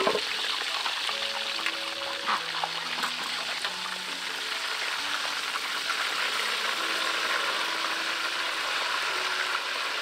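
Pieces of boiled pork frying in hot soybean oil, a steady sizzle, with soft background music of held notes over it.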